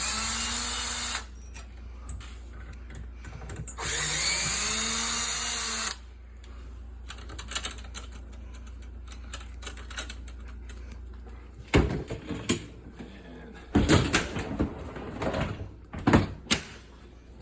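Cordless drill/driver running in two short bursts, its motor pitch rising and falling as it backs out screws to free the dishwasher. Near the end come irregular clunks and rattles of parts being handled.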